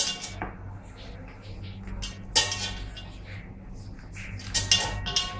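A raw crab's legs being twisted off by hand over a stainless-steel sink: a few sharp cracks and clatters of shell and knocks against the metal sink, the loudest about two and a half seconds in, over a low steady hum.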